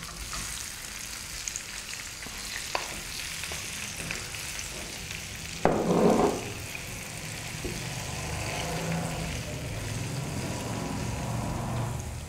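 Amla pieces sizzling softly in hot mustard oil in a frying pan while a wooden spatula stirs and scrapes them around, with a brief louder clatter about six seconds in.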